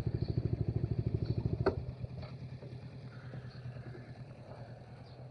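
Motor scooter engine idling with a fast, even putter, then shut off with a sharp click about two seconds in, leaving only a faint steady hum.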